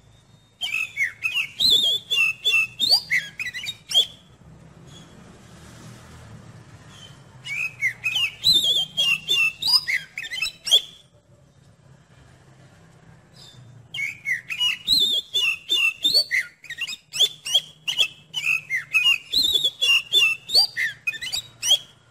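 Oriental magpie-robin (kacer) singing in three bouts of rapid, varied whistled phrases, with short pauses between them. A faint low hum runs underneath.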